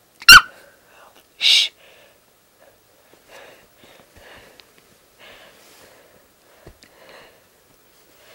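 A small fluffy puppy gives one short, very loud yip that drops in pitch, then a short breathy huff about a second later. After that there is faint snuffling and rustling of bedding as a hand rubs it.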